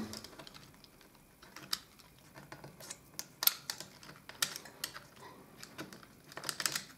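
Thin veneer offcut strip being cut free with a utility knife and peeled off a hide-glued, hammer-veneered panel edge: a scatter of light, irregular clicks and crackles, busier in the second half.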